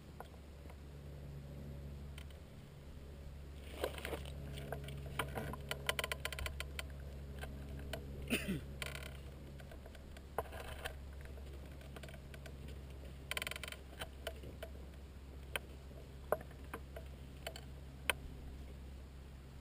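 Faint low wind rumble on the microphone, with scattered rustling crackles and clicks close by. These come thickest about four to nine seconds in and again around thirteen seconds, with a few single sharp ticks after.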